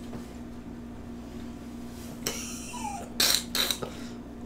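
A few short, crisp crunches about two to three and a half seconds in: a bite taken from a Hot Cheeto-crusted fried pickle. A steady low hum runs underneath.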